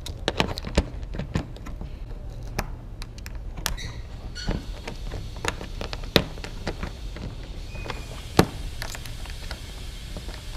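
Irregular sharp clicks and knocks of hand tools and metal fastener parts being handled while a bumper quick release is fitted, over a steady low hum. The loudest knocks come about a second in and again near the end.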